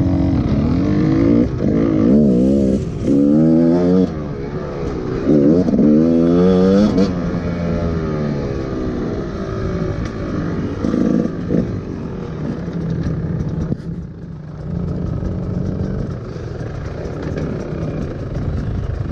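GasGas EC 300 two-stroke enduro motorcycle engine revving hard again and again, pitch rising and falling over the first seven seconds or so, then running more evenly at lower revs.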